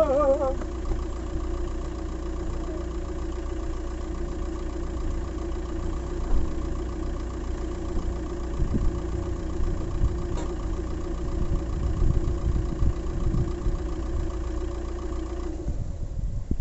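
Vehicle engine idling with a steady hum over a low rumble; the hum stops shortly before the end.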